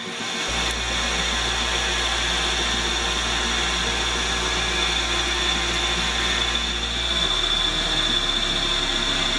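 Metal lathe turning an aluminium rod, its tool cutting steadily: an even machining hiss with a steady high whine. A low hum underneath changes pitch about seven seconds in.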